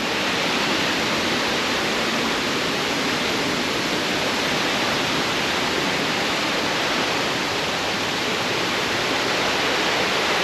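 Steady rushing of the fast-flowing Lech river and its waterfall.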